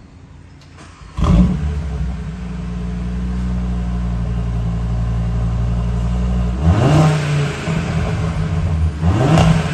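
Audi RS3 8Y's turbocharged five-cylinder engine, breathing through an AWE SwitchPath cat-back exhaust with its valves closed. It starts about a second in with a loud flare, settles to a steady idle, then is revved twice in quick blips in the last few seconds.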